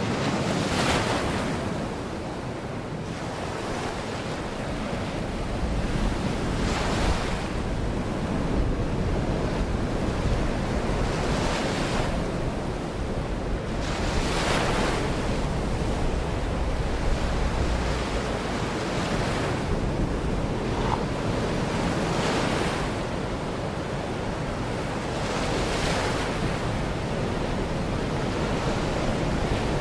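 Baltic Sea waves breaking on the shore: a wave washes in every three to five seconds over a steady rush of surf, with a low wind rumble on the microphone.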